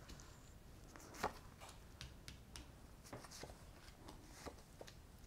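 Tarot cards being handled and dealt onto a cloth-covered table: a few faint, short taps and slides, the clearest about a second in.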